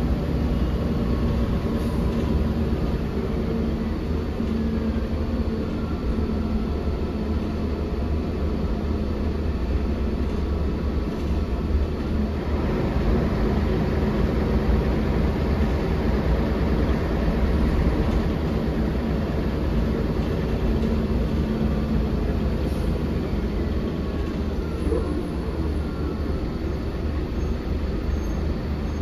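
Inside a moving 1999 Volvo B10L bus: the rear-mounted engine and driveline run steadily under road noise. Its low drone shifts in pitch now and then as the bus changes speed.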